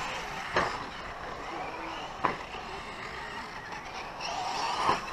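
1/10-scale radio-controlled 4wd short course trucks racing on a dirt track: a steady whine of motors and tyre noise, broken by three sharp knocks as trucks land or strike the track.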